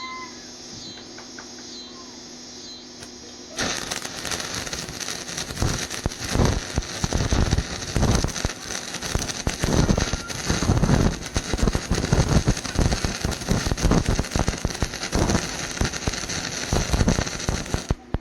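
Stick-welding arc crackling and sputtering steadily, struck about three and a half seconds in and broken off just before the end. Before the arc is struck, only a steady hum is heard.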